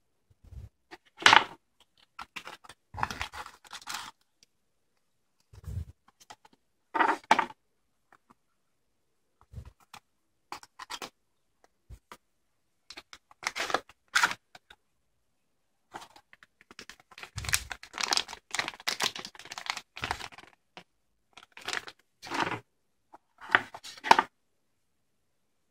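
Small cardboard boxes and packaging from an Arduino Starter Kit being opened and handled by hand: rustling, scraping and sliding of card. The sounds come in short separate bursts with silent gaps between them, busiest in the second half.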